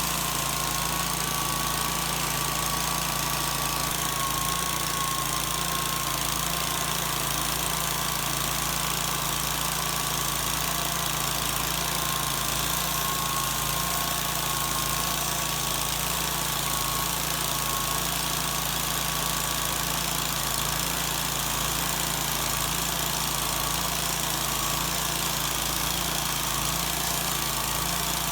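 Sawmill's engine running steadily, with a steady high-pitched whine over the engine hum.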